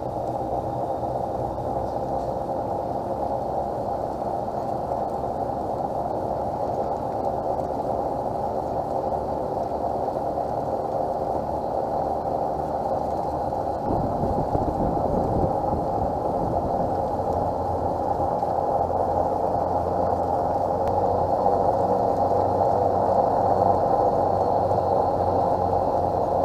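Steady running noise of a slow-moving vehicle on a paved road, a constant hum with a brief low rumble about fourteen seconds in.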